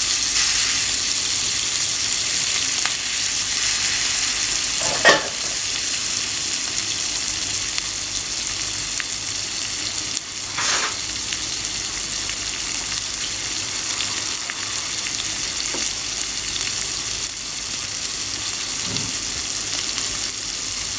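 Chopped garlic sizzling in melted butter in a frying pan, a steady hiss as it roasts. Twice, about a quarter and halfway through, something knocks briefly against the pan.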